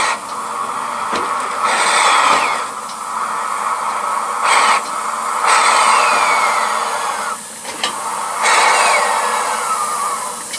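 Double Fairlie steam locomotive Merddin Emrys moving slowly, its steam hissing in about four long bursts with faint falling whistles in some, as steam blows out low beside the wheels.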